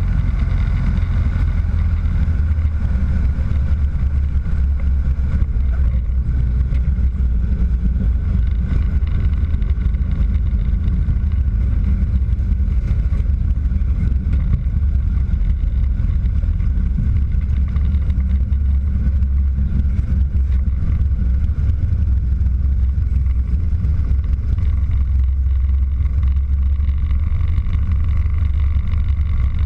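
Christen Eagle biplane's piston engine and propeller running steadily while the plane taxis, a constant low-pitched drone.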